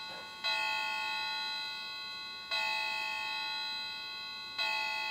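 Small grandfather clock's electronic chime striking the hour through its built-in speaker: a bell-like dong three times, about two seconds apart, each ringing on and fading.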